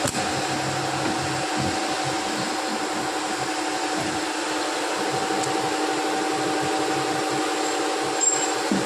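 Plastic injection moulding machine's hydraulic pump running with a steady hum: two even tones over a hiss. A light knock near the end.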